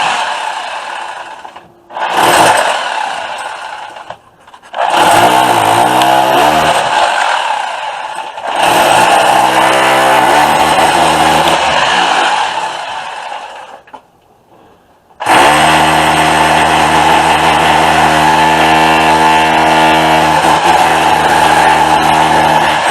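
Electric chipping hammer, a mini jackhammer, running in long loud bursts as it chips out the wall behind a shower to get at the shower valve. Its motor whines and rises in pitch each time it starts up again, with short stops about two seconds in, about four seconds in, and for about a second near the middle.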